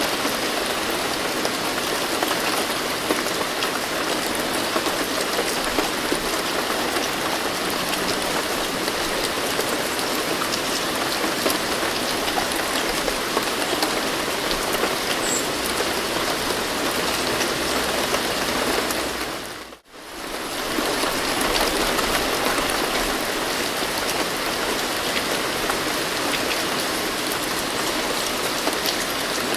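Steady rain falling in an even hiss, which fades out briefly and comes straight back about two-thirds of the way through.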